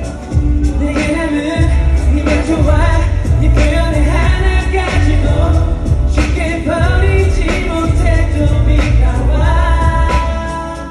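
Live pop/R&B song with a heavy bass beat and a male lead vocal singing, loud in the venue.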